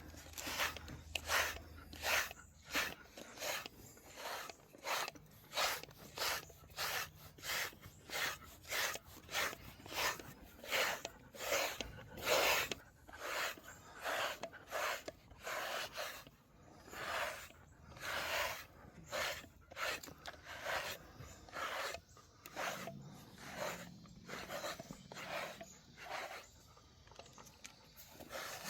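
A deshedding brush raking through a Labrador mix's coat in quick, regular rasping strokes, about one and a half to two a second, pulling out loose undercoat.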